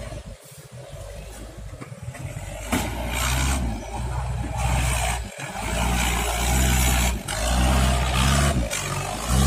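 Engine of a heavily loaded old cab-over truck revving hard as it churns through deep mud, growing louder about a third of the way in, its pitch rising and falling as the throttle is worked, with brief drops in between.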